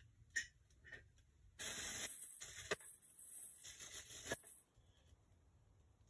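Packaging being handled and rustled in three short crinkling bursts, with a few sharp clicks.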